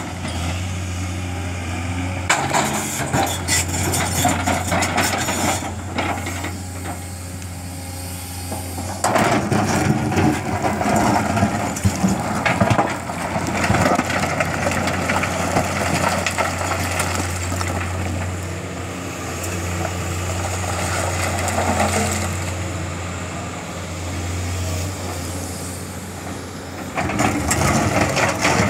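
JCB tracked excavator's diesel engine running steadily under load, with rock crunching and scraping in stretches as the bucket digs into and shoves broken stone, loudest about ten seconds in and near the end.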